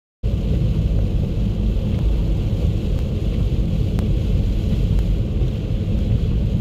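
Steady low road and engine rumble inside a car driving on a wet road in the rain, starting a moment in after a brief silence.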